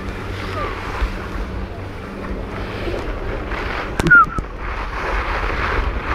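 Wind buffeting a phone's microphone on an open ski slope, a steady rushing noise, with a brief sharp click and short squeak about four seconds in.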